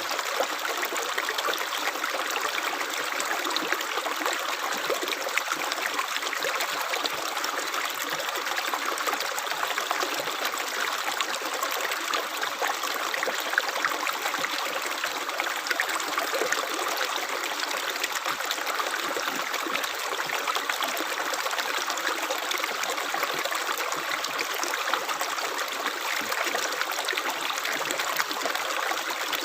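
Running water of a stream, trickling steadily with many small splashes.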